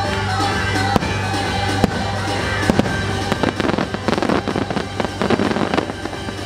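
Fireworks going off over music. There are single sharp bangs about one, two and nearly three seconds in, then a dense run of crackling pops from about three and a half to six seconds in.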